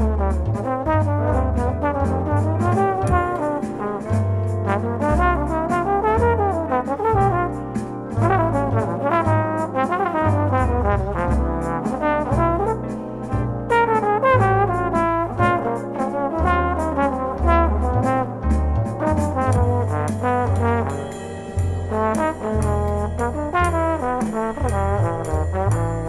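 Jazz trombone solo in a jazz waltz: a single trombone line with slides between notes, backed by electric archtop guitar, bass and electronic drums.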